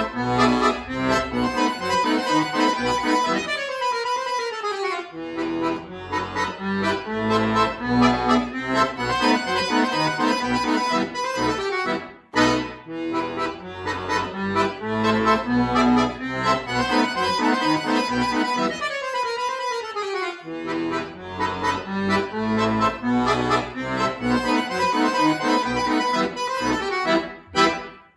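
Solo chromatic button accordion playing a fast, lively piece of quick running notes, with a rapid falling run about four seconds in and again about nineteen seconds in, and two brief breaks.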